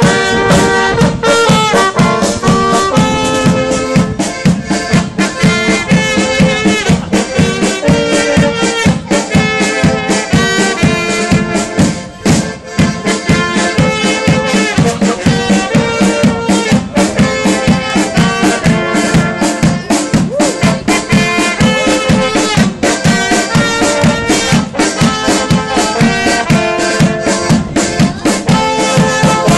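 Small band of brass, accordion and a bass drum with cymbal playing a tune, held horn notes over a steady drum beat.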